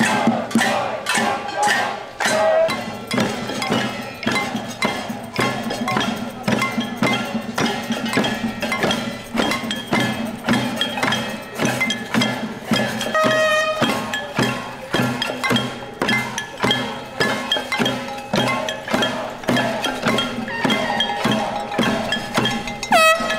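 Many metal pots and pans being banged with strikers: rapid, irregular, ringing clanging that never lets up. A horn gives a short blast about halfway through and starts again at the very end.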